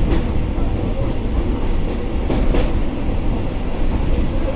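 Moving train heard from inside a passenger carriage: a steady low rumble of wheels on rails, with a few knocks from the wheels crossing rail joints, one just after the start and a couple about halfway through.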